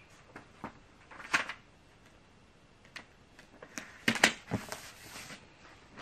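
Sheets of paper being handled: scattered crinkles and light clicks, with a louder rustle about a second in and a cluster of sharper crinkles about four seconds in.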